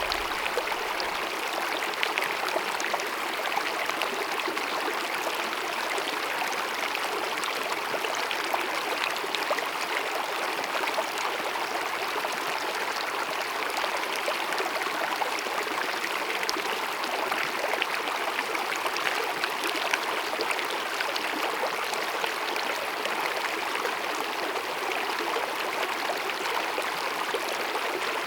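Small glacier-fed mountain stream running steadily over rocks: an even babbling and splashing with fine droplet clicks.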